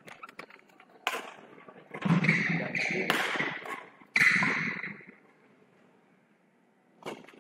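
Badminton rally: several sharp racket hits on the shuttlecock, roughly a second apart, mixed with players' footwork on the court.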